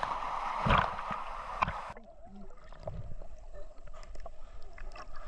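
Water splashing and rushing close around a GoPro in a waterfall pool, with a few thumps. About two seconds in the sound suddenly turns duller and quieter, the hiss gone, leaving faint gurgling and small clicks.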